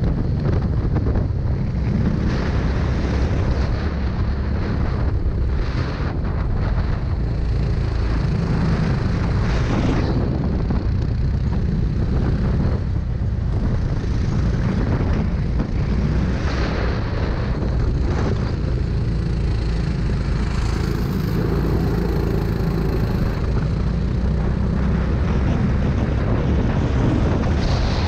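Racing kart's engine heard onboard under heavy wind rumble on the camera microphone. Its pitch falls into the corners and rises again on the straight.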